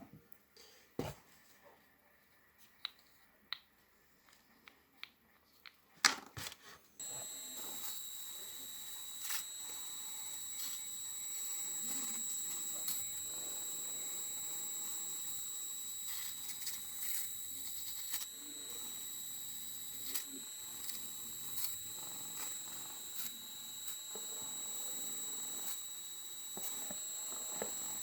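Light scattered clicks and taps, then about seven seconds in a steady high-pitched whine starts suddenly and holds, with taps and small knocks continuing over it.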